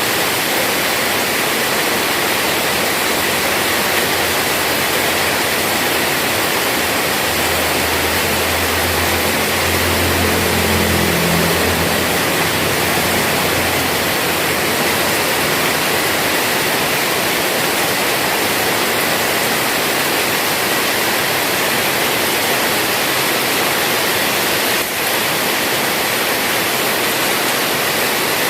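Heavy rain pouring down in a steady, even hiss. About a quarter of the way through, a low hum joins in for a few seconds, then fades away.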